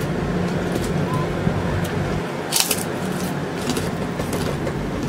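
Metal spoon scraping and clicking against a banana-leaf-wrapped rice parcel: a few light ticks and one sharper scrape about two and a half seconds in, over a steady low hum.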